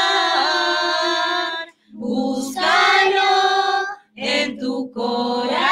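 A small choir of women and children singing a Spanish song together: a long held note ends about one and a half seconds in, and after a short breath the next phrases begin.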